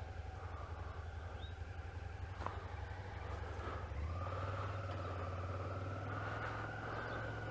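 Small motorcycle engine running at low speed, a steady low hum whose note steps up slightly about four seconds in as the bike pulls along.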